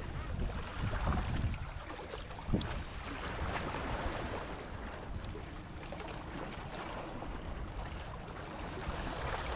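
Wind buffeting the microphone over steady washing water, with a single light knock about two and a half seconds in.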